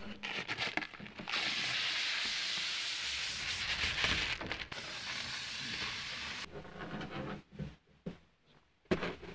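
Clear protective plastic film being peeled off a laser cutter's tinted lid: a steady crackling hiss that starts about a second in, lasts about five seconds, and cuts off abruptly.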